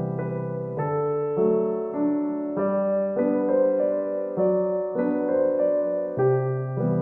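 Background music: a gentle piano or electric piano melody, a new note about every half second with sustained chords beneath.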